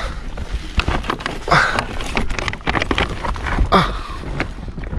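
A person crawling through a tight rock crawlway: clothing rustling and scraping against rock, with short grunts of effort about every two seconds.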